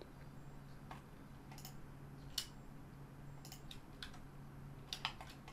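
Scattered sharp clicks of a computer keyboard and mouse, irregularly spaced, the loudest about two and a half seconds in, over a faint low steady hum.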